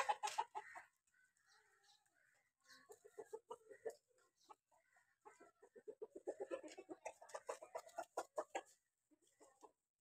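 Chicken clucking in runs of rapid short clucks: a brief run about three seconds in, then a longer one from about five to nine seconds in.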